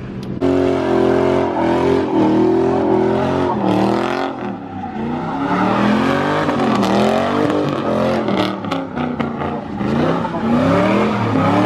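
Car engine revved up and down again and again, its pitch climbing and dropping every second or two, over a steady low engine drone.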